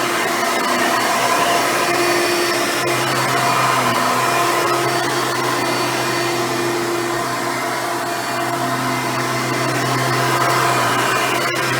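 Hoover Runabout vacuum cleaner running steadily, a continuous motor hum with a steady whine above it, dipping slightly about eight seconds in.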